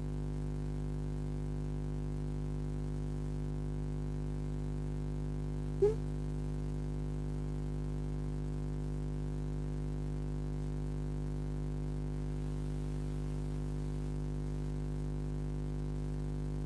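Steady electrical hum in the microphone's audio chain, a buzz made of many evenly spaced tones that never changes. A brief blip sounds once about six seconds in.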